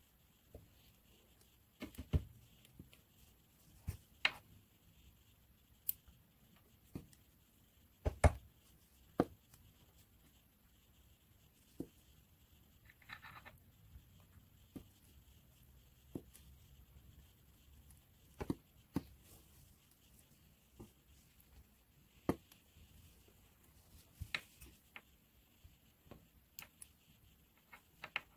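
Quiet room with scattered small clicks and taps, irregular and a few seconds apart, from hands and a thin metal pick working seeds out of a strawberry on a paper-towel-covered table. A brief soft rustle comes about halfway through.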